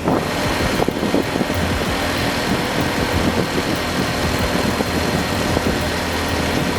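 Heavy vehicle engine running steadily, with a broad rumble and hum.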